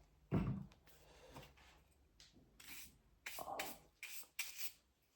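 Trim-restoring gel being rubbed onto the sanded surface of an ABS 3D print: a dull thump about half a second in, then several short scratchy rubbing strokes in the second half.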